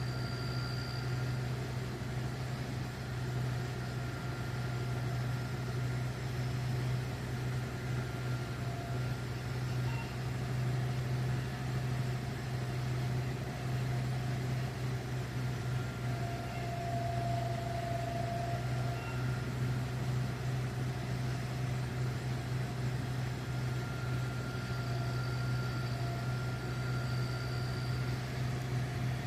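Vehicle engine idling steadily, an even low hum with no changes in speed.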